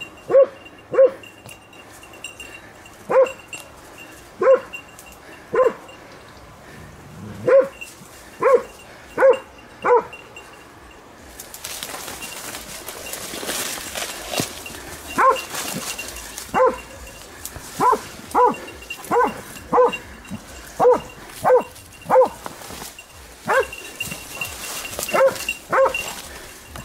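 Hunting dog barking repeatedly: short single barks at an uneven pace, in runs, about one a second. From about halfway through, undergrowth rustles as someone pushes through the brush.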